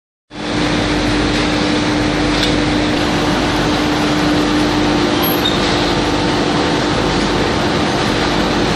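Pass-through hanger-type shot blasting machine running: a loud, steady machine noise with a constant hum.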